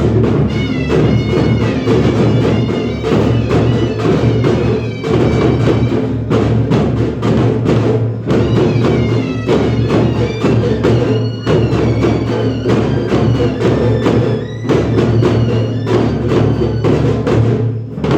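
Dhangar folk music: fast, dense drumming with a high, bending melody line over a steady low drone.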